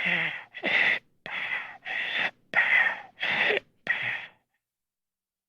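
Dying breaths: a person's short, gasping breaths, about seven in quick even succession, some with a faint groan in the voice. They stop abruptly about four seconds in.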